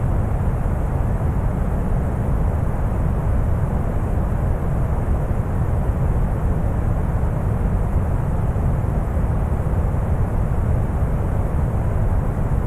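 Deep brown noise: a steady, even rush of synthetic noise, heaviest in the bass and dull, with little treble.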